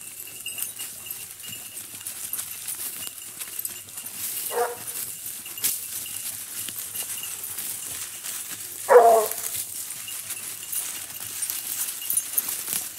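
Two short single cries from a blue basset hunting hound giving tongue while hunting hare, one about four and a half seconds in and a louder one about nine seconds in, each falling in pitch.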